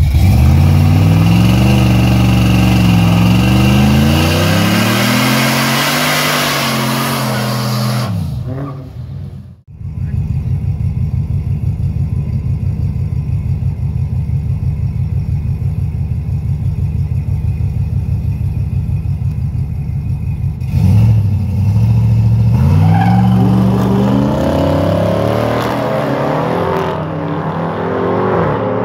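Drag race car engine being revved up and down in repeated blips. After a short break it runs at a steady, lumpy pulsing idle, then is revved again about twenty seconds in.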